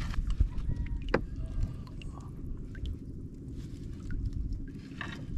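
A wet fishing net being hauled hand over hand into a wooden outrigger boat, with scattered drips, small splashes and light knocks against the hull. A steady low rumble runs underneath.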